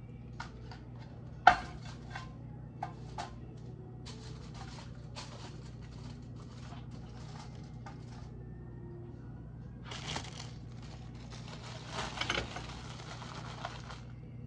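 Kitchen handling sounds: one sharp knock about a second and a half in, scattered small clicks and taps, then a plastic bag crinkling in two spells near the end, over a steady low hum.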